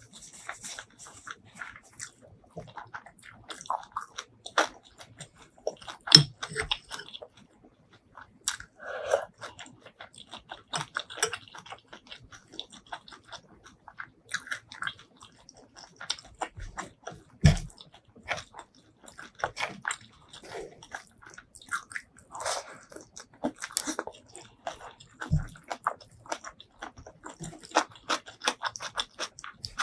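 Close-miked eating sounds: a person chewing and biting shrimp curry and rice, with irregular wet mouth smacks and clicks and a few louder bites.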